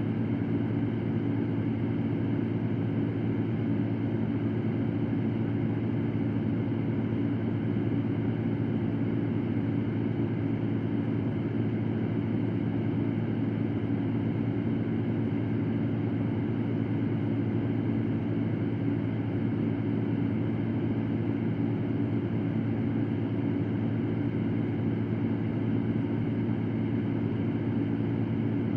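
Electric fan running at a steady speed: an even, unbroken whir with a low hum, no change in pitch or level.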